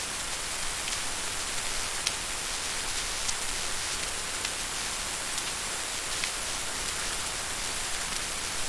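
Steady rain falling as an even hiss, with a few scattered drop ticks.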